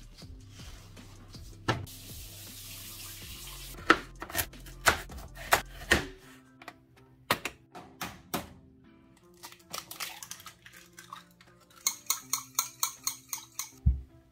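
Sharp taps and clinks of kitchenware: an egg tapped on a bowl, then near the end a quick run of about eight clinks as egg is beaten with a spoon in the bowl, over background music.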